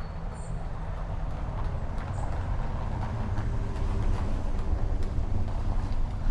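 Steady low vehicle rumble that slowly grows louder, with a few faint clicks over it.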